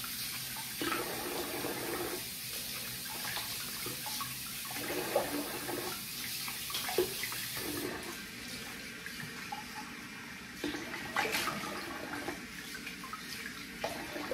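Tap water running into a bathroom sink, with irregular splashing as shaving lather is rinsed off the face. The hiss of the running water changes about eight seconds in.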